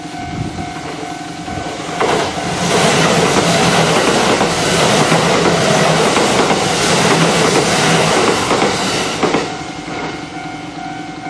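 An electric commuter train passes over a Japanese level crossing, loud from about two seconds in until about nine and a half seconds. Its wheels clatter over the rails. Under it and on either side, the crossing's warning bell rings steadily.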